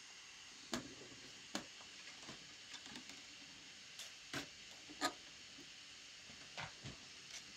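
About ten light, irregular clicks and taps from hands handling PET filament in a small homemade filament welder, over a faint steady hiss.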